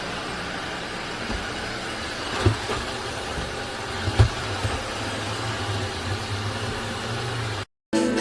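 Cordless wet-dry floor cleaner running steadily with a low hum, with a knock about two and a half seconds in and a louder one about four seconds in. It cuts off abruptly near the end.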